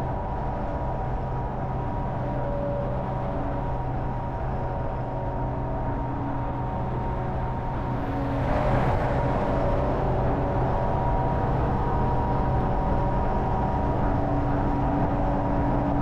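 Hummer H1 cruising on a freeway with the top down: a steady engine drone over road and wind noise. About halfway through it gets louder, with a rush of wind and tyre noise, and stays at that higher level.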